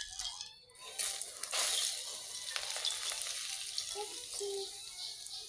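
Very hot oil poured onto flour for mandazi dough, sizzling as it hits, starting about a second in and slowly dying away. The hot oil partly cooks the flour before frying.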